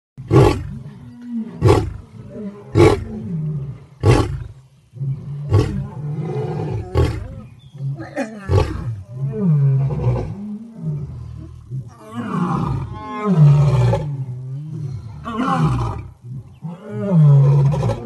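Male lion roaring at close range: a run of short, deep calls in the first few seconds, then longer roars that come every one to two seconds.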